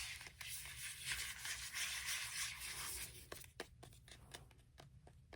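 Close-up rustling, like paper or plastic being handled, for about three seconds, then a scatter of light clicks and taps.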